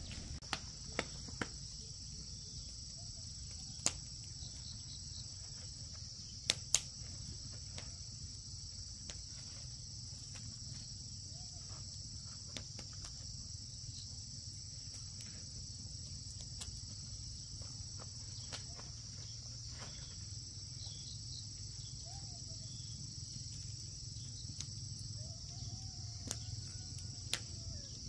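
Steady high-pitched chorus of insects chirring, over a low rumble, with a few scattered sharp clicks, the loudest a pair about six and a half seconds in.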